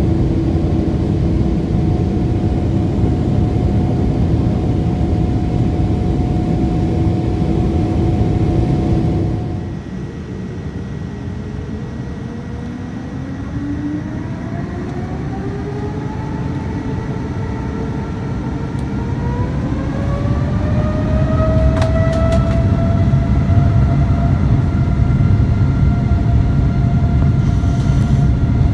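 Airliner engines heard from inside the cabin. A steady drone with a held whine stops abruptly at about ten seconds. The engines then spool up, their whine rising in pitch for about ten seconds and settling into a steady high note as the low rumble of the takeoff roll grows louder.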